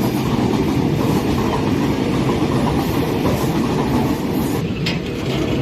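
Freight train rolling along the rails: a loud, steady rumble of wheels and wagons.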